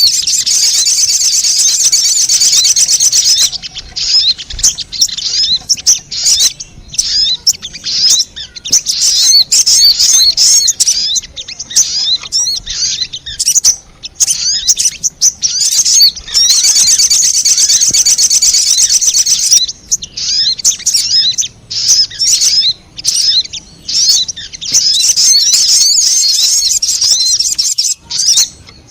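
Sogon bird song played as a lure call: high, rapid chirps and trills. Dense unbroken trilling at the start, again around the middle and near the end, with choppier, gapped bursts of chirping between.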